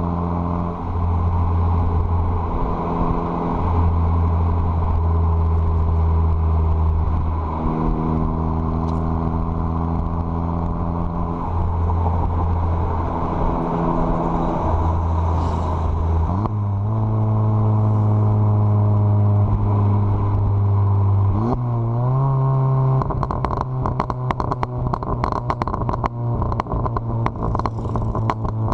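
Stage 2-tuned VW Golf Mk7 GTI's 2.0-litre turbocharged four-cylinder with a catless downpipe, running at moderate revs with its pitch stepping up and down. The revs climb about halfway through and again a few seconds later. Over the last several seconds a rapid run of crackles and pops breaks in from the exhaust, the effect of its crackle-and-pop tune.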